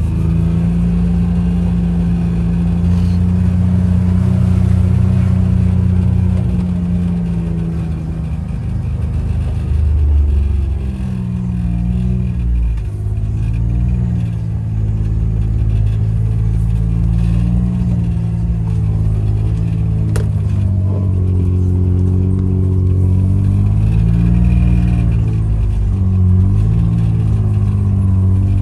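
Side-by-side utility vehicle's engine running as it drives along. It holds a steady pitch at first, then rises and falls repeatedly with the throttle over the second half.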